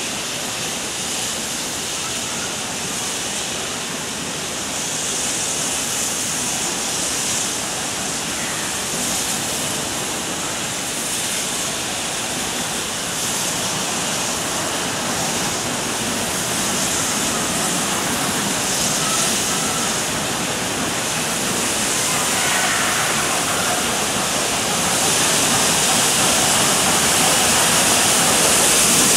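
Steady rushing hiss of the 1873 SLM cogwheel steam locomotive No. 7, with its vertical boiler, working uphill toward the level crossing. It grows gradually louder as it approaches.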